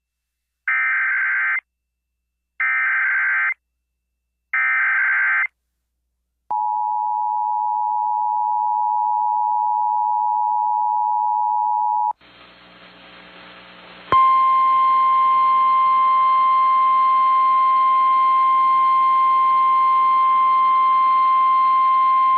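Emergency Alert System alert tones: three short screeching bursts of SAME header data, each about a second long with a second's pause between, then the steady two-tone EAS attention signal for about five and a half seconds. After a brief hiss, a single steady tone plays over radio static for about nine seconds: the NOAA Weather Radio warning alarm that introduces the tornado warning.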